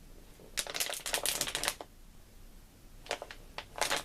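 Plastic water bottle crackling as it is pressed under a foot, faking the sound of cracking knuckles. A quick run of crackles lasts about a second, then two shorter crackles come near the end.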